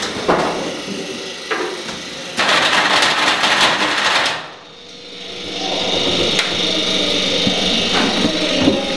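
Electric countertop blender running, churning a brown liquid: a loud dense churning that cuts off suddenly about halfway, then the motor comes back up to a steady whine. A few knocks from handling come before it starts.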